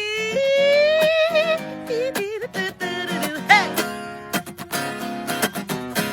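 Song with a wordless sung note sliding slowly upward and ending in a vibrato, then short vocal runs, over acoustic guitar; strummed chords take over near the middle.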